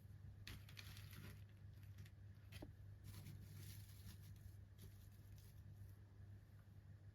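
Faint rustling and crinkling of doll packaging being handled, in a cluster of short scrapes from about half a second in until near the end, over a steady low hum.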